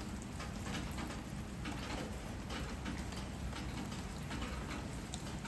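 Light rain falling steadily, with individual drops ticking at irregular moments over a low, steady rumble.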